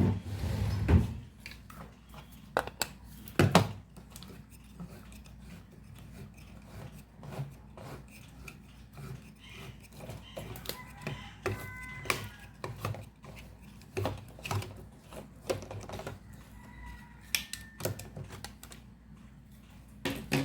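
Small metal clicks and clinks of kitchen utensils: rummaging for a can opener and working a hand can opener around a tin of green peas, with a few brief metallic squeaks.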